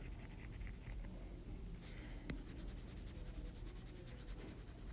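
Pencil scratching faintly on paper, with one sharp click a little over two seconds in.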